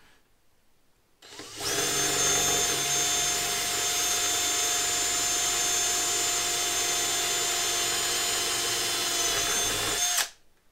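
Handheld power drill running at a steady speed, boring through the pre-drilled holes of a window trim ring into the door. It starts about a second in and runs without a break for about nine seconds, then cuts off suddenly near the end.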